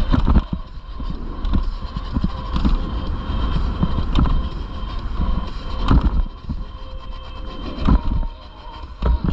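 Street traffic and wind rumble on a moving cyclist's camera microphone, with a few sharp knocks, and faint steady tones under it.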